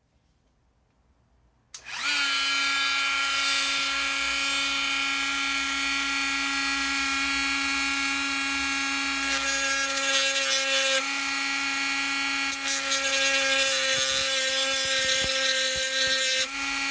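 Handheld rotary tool with a thin cut-off disc, switched on about two seconds in and running at high speed with a steady whine. Twice, the second time longer, the disc bites into the padlock's metal back plate and a harsher grinding hiss joins the whine.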